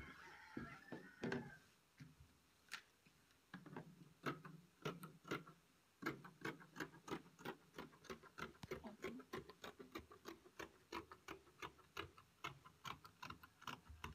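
Scissors snipping through satin fabric: a quick, even run of blade clicks, about three to four a second, after a soft rustle of the cloth being smoothed by hand in the first couple of seconds.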